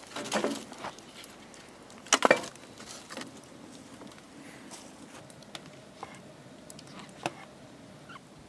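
Split firewood logs being shoved and dropped into a wood fire's firebox: a short wooden clatter at the start and a sharp wooden knock about two seconds in. After that, scattered light pops and ticks.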